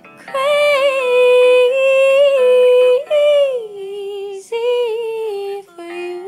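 A woman singing long, loud held notes with a slight waver, sliding down to a lower note about three seconds in, then two shorter held phrases, over a quiet karaoke backing track.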